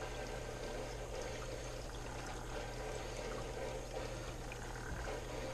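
Aquarium siphon hose draining tank water into a plastic bucket: a steady, thin pouring trickle. The flow is slow, which the keeper takes for a clog somewhere in the line.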